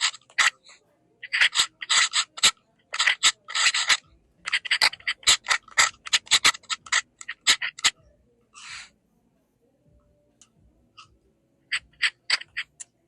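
Fountain pen nib scratching across diary paper in quick, short writing strokes. The strokes stop about eight seconds in, with one soft brushing sound in the pause, then pick up again briefly near the end.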